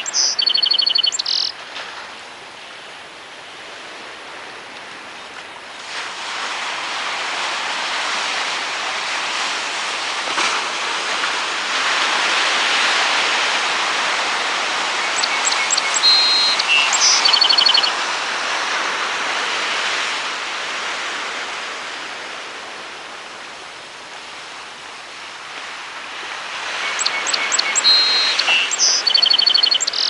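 A song sparrow sings three songs about twelve seconds apart, each a run of sharp introductory notes followed by buzzy trills. Between the songs a steady rushing background noise swells and fades.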